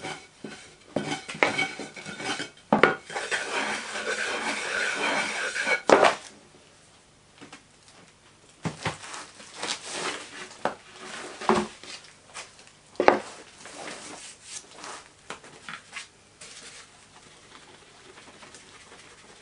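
Wooden strike-off bar scraping excess greensand off the top of a wooden moulding box: a rough scraping for several seconds that ends in a sharp knock. Then knocks and clatter as the box and its board are lifted and turned over, with another sharp knock about two-thirds of the way through, and faint soft taps near the end as parting powder is shaken from a cloth bag.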